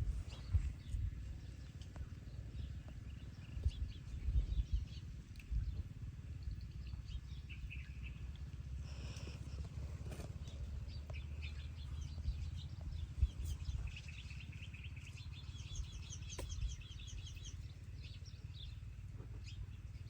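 Small birds chirping and trilling, with a dense run of trills about two-thirds of the way in, over a steady low rumble and a few soft thumps.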